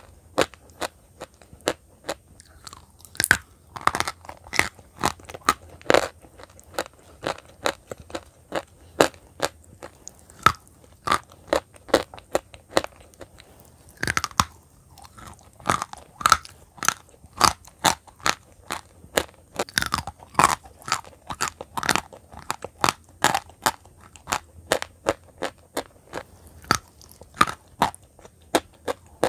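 White chalk chunks, some smeared with a brown paste, being bitten and chewed: a continuous irregular series of sharp, dry crunches, about one to two a second.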